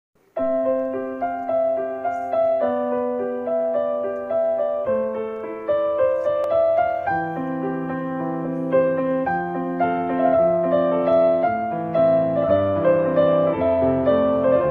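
Piano music: a keyboard playing chords with a melody line over them, starting a moment in.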